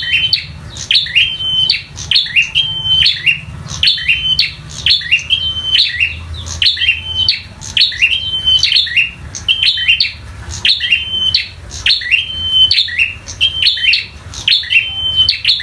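Prenjak, a prinia songbird, repeating its sharp 'tarung' fighting call about once a second. Each call is a quick swept chirp followed by a short held whistle.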